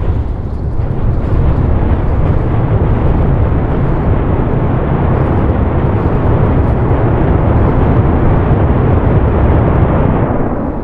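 SpaceX Super Heavy booster's Raptor engines firing in a static fire test on the launch mount: a loud, steady rush of rocket noise, heaviest in the low end, that starts suddenly and tapers off near the end as the engines shut down.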